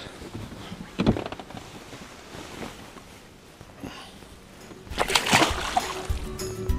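Water splashing at the side of a boat as a pike is lowered in and released, with a louder burst of splashing about five seconds in as the fish breaks free and swims off. Music starts near the end.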